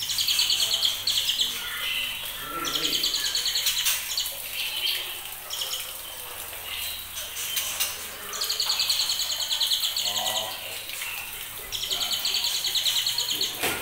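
Juvenile white-rumped shamas, about two months old, calling in bouts of rapid, high-pitched chattering notes. There are four bursts with short pauses between them.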